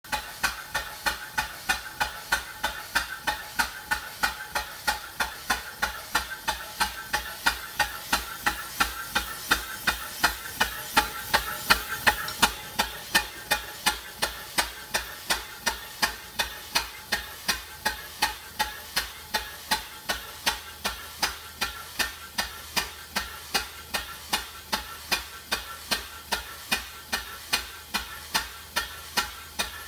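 Early vertical steam engine running on compressed air, its exhaust puffing sharply and evenly at between two and three beats a second. A steady hiss under the beat is louder for the first twelve seconds or so, then eases off.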